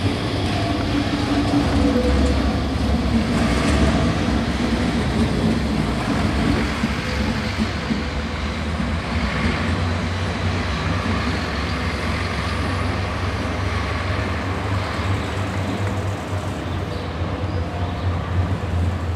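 NGT6WL Leoliner low-floor tram running through a turning loop and pulling away, a steady low rumble that is loudest in the first few seconds, mixed with road traffic including a passing articulated diesel bus.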